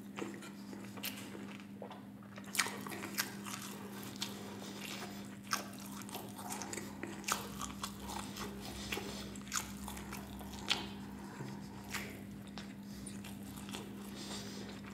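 Close-miked biting and chewing of a burger with a crunchy Flamin' Hot Cheetos-crusted patty, with irregular sharp crunches about once or twice a second.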